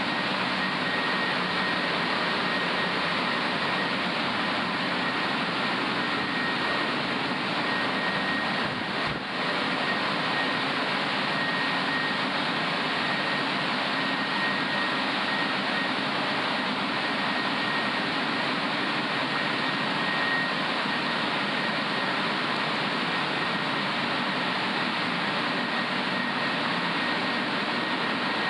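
Blow-dryer fans of an automatic rollover car wash running as the drying gantry passes over the car: a steady rush of air with a thin high whine, dipping briefly about nine seconds in.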